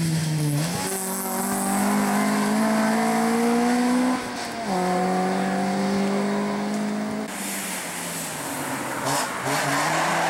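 Honda Civic rally car's engine accelerating hard, its pitch climbing steadily and dropping at gear changes about four seconds and seven seconds in. A rush of tyre noise comes in near the end.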